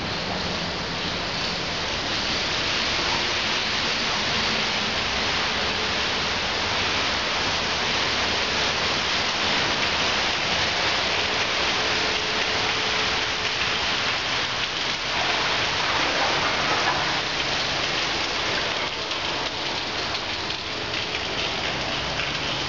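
Steady hiss of heavy rain falling and splashing on wet ground.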